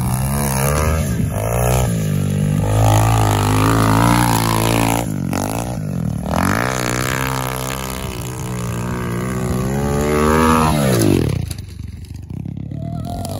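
SSR 125 pit bike's single-cylinder four-stroke engine ridden hard on a dirt track, revving up and dropping in pitch again and again through gear changes and throttle off and on. Near the end it revs high once more, then falls away as the bike slows.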